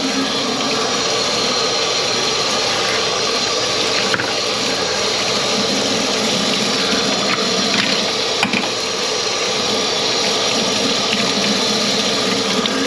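Kitchen tap running steadily into a stainless steel sink, the water splashing over gloved hands wringing a cloth under the stream.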